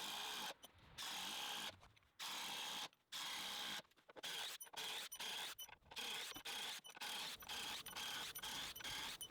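DeWALT Atomic DCF809 cordless impact driver running in repeated bursts as it drives long self-tapping screws in and out, sped up. The bursts last about a second at first, then come shorter and quicker, about two a second, in the second half.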